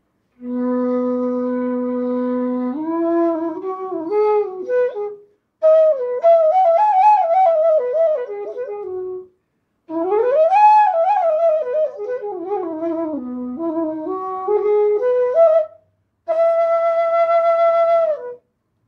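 Punam Flutes E bass bansuri being played. It opens on a long low held note, then moves through flowing melodic phrases in four breaths with short pauses between them, and ends on a held higher note.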